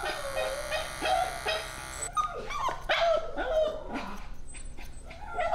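Maltese–Shih Tzu mix dog crying out in repeated short, wavering whines and yelps, an anxious dog protesting while its paw pads are shaved, with electric pet clippers humming underneath.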